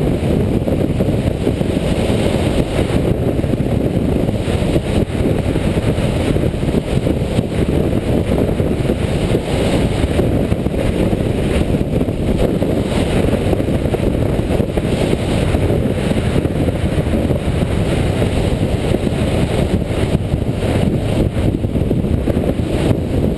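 Suzuki GS500 motorcycle at a steady road speed: wind rushing over the microphone, with the air-cooled parallel-twin engine running evenly underneath.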